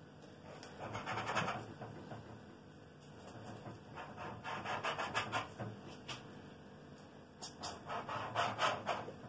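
A cup used as a doughnut cutter, pressed and twisted through rolled yeast dough, its rim scraping against the board underneath. There are three scratchy rubs: about a second in, in the middle, and near the end.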